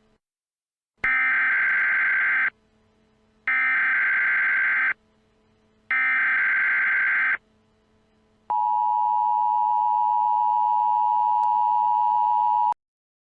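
Emergency Alert System SAME header: three bursts of warbling digital data, each about a second and a half long with a second's gap between them. They are followed by the EAS attention signal, a steady two-pitched tone held for about four seconds that cuts off suddenly.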